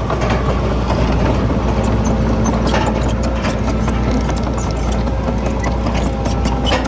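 Heavy diesel engine of earthmoving machinery running steadily, with frequent short clanks and knocks on top.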